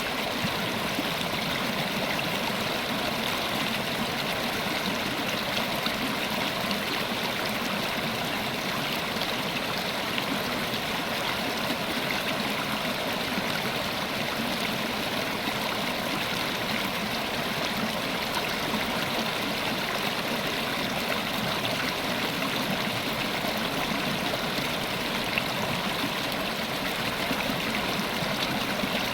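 River water running, a steady rushing flow.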